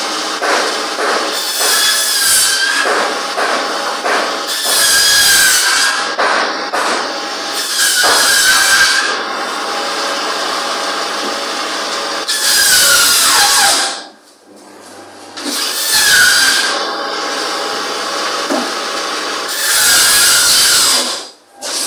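Meat band saw running with a steady hum, its blade cutting through beef shank in about six loud, harsh passes of a second or so each, each with a screeching tone as the blade goes through bone. The sound drops away briefly about two-thirds through and again near the end.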